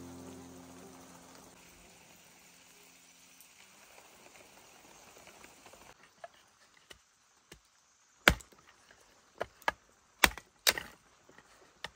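A held background-music note fades away over the first few seconds. Then, in the second half, a series of sharp knocks or chops, about half a dozen, the loudest about eight seconds in.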